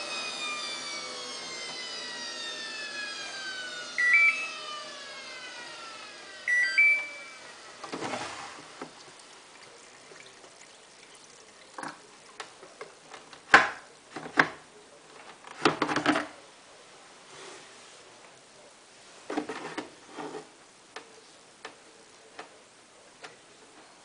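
Samsung WF8804RPA front-loading washing machine's drum spin winding down, the motor whine falling steadily in pitch over about eight seconds, with two short control-panel beeps partway through. After the drum stops come scattered knocks and clicks, the loudest a few sharp clunks in the middle.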